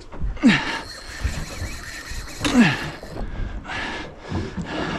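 Two short grunts of effort, falling in pitch, from an angler straining against a hard-running fish on the rod, over a steady haze of wind and water noise.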